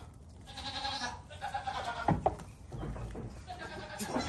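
Baby goats bleating, several short calls one after another. A few sharp taps or knocks come through, the loudest about two seconds in.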